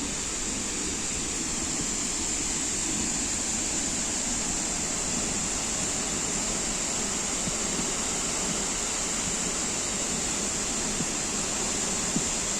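Waterfall's falling water: a steady, unbroken rushing noise.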